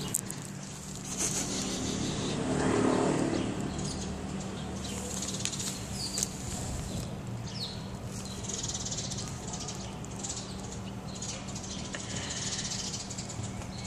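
Outdoor street ambience: a steady low hum, scattered short high chirps, and a broader swell of noise that rises and fades about two to three seconds in.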